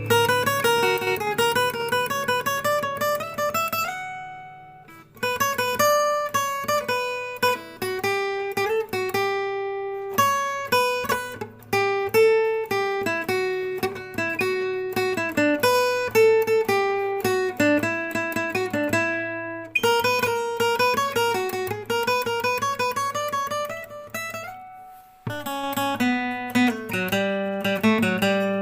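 Background music: acoustic guitar playing a plucked melody, with short pauses about four seconds in and near the end.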